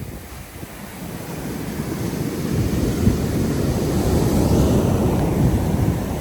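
Wind buffeting the microphone over the wash of sea waves on the beach, a low rumbling noise that swells over a few seconds and eases slightly near the end.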